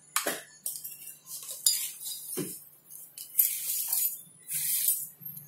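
Screwdriver and small metal parts clinking and rattling against the chainsaw housing and tools: a string of sharp clicks and short scrapes, loudest about a third and two thirds of the way through, as a small bolt is fitted.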